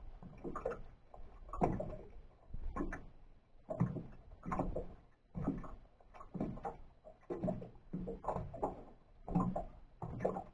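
Small waves lapping against the hull of a small open fishing boat, irregular hollow slaps about once a second.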